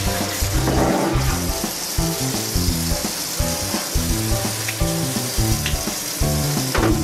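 Tap water running steadily onto an enamelled iron frying pan in a stainless steel sink as the pan is scrubbed with a sponge and rinsed, with background music.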